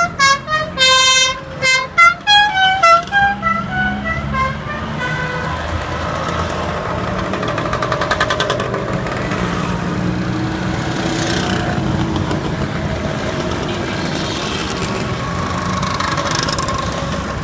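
A horn tooting a quick run of notes at changing pitches for the first four seconds or so, then a steady stream of motor scooter engines passing and revving, with several louder passes.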